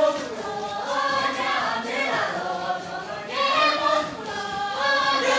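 A group of voices singing together in chorus, the pitch rising and falling in long phrases.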